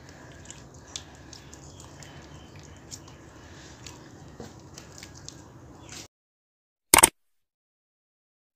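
Hands squishing and kneading watery cement and baking soda paste, a wet sloshing with small sticky clicks, which stops suddenly about six seconds in. About a second later comes one short, loud click.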